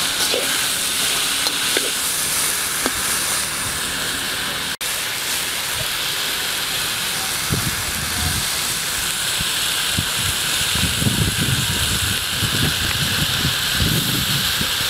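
Leafy greens sizzling as they stir-fry in a metal wok, a steady hiss, with soft low knocks of the tongs turning them in the second half.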